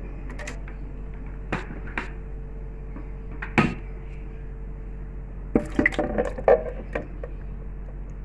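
A few sharp taps on a plastic grinder jar, then, about five and a half seconds in, a quick cluster of knocks and clatters as yogurt is spooned into the jar, over a steady low hum.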